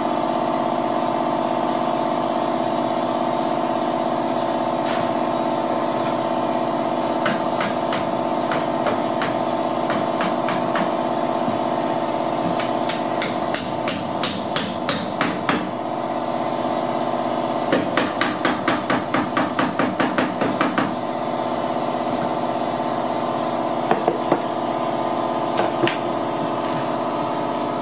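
Hammer tapping wood shims in behind a door jamb: scattered taps, then two quick runs of rapid light taps in the middle and a few more near the end. A steady mechanical hum runs underneath.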